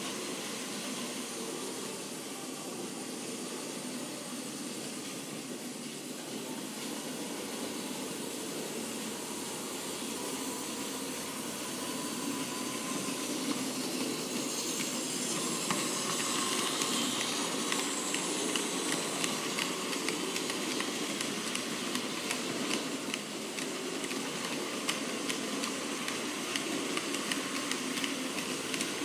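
Model freight train running past on layout track, headed by a BR 44 model steam locomotive and pushed by a BR 85 model: a steady hiss of running wheels and motors that grows louder about halfway through as the wagons come by, with light clicking of wheels over the rail joints.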